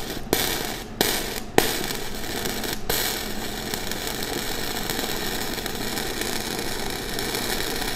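Flux-core wire-feed welding arc running with the voltage too high and the wire feed speed too low: a steady crackling hiss with a few sharp pops in the first three seconds. The wire burns in hot but feeds too slowly to build a solid bead.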